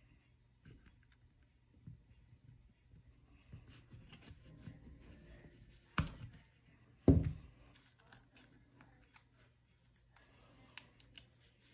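Small handling noises as hands and a thin screwdriver work the rubber diaphragm of a carburetor's vacuum slide on a tabletop: light clicks and rubbing, with two sharper knocks about six and seven seconds in, the second the loudest.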